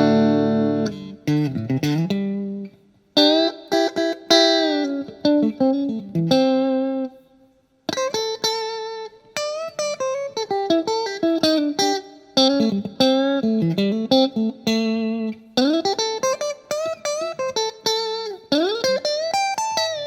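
Clean electric guitar playing single notes and chords with string bends, from a Stratocaster-style guitar on the neck-and-middle pickup combination through a Vox VT20X modeling amp on its Deluxe Clean setting. The playing pauses briefly twice, about three seconds in and again around seven seconds.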